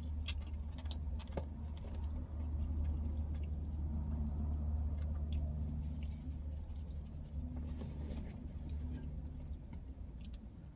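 Close-miked chewing of thin-crust pizza, with scattered small crisp crunches and mouth clicks over a steady low hum.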